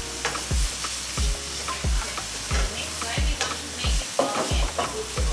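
Pad thai sizzling as it is stir-fried in small frying pans over gas burners, with spatulas stirring and scraping in the pans. Over it runs music with a steady bass drum beat, about one and a half beats a second, and the beat is the loudest thing.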